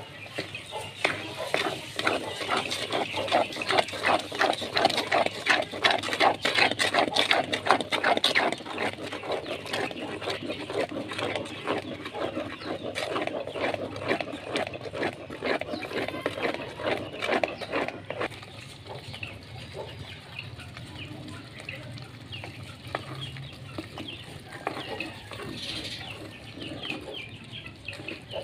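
Wooden spoon stirring and scraping semolina and sugar in a clay pot, a fast run of gritty scraping strokes. It is loudest in the first several seconds and fainter after about eighteen seconds.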